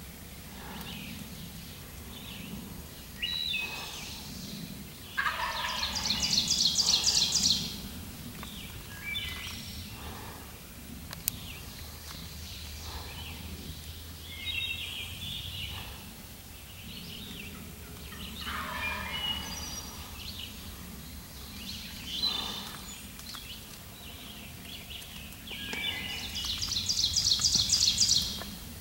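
Wild turkey gobbler gobbling twice at close range, each a loud rapid rattling call lasting a couple of seconds, one about five seconds in and one near the end. Songbirds chirp in between.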